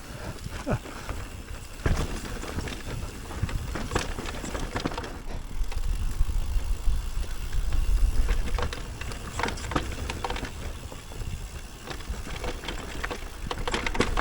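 E-mountain bike riding down a rough off-piste trail: tyres rolling over dirt, roots and rocks, with irregular clicks and rattles from the bike and a low rumble of wind on the microphone.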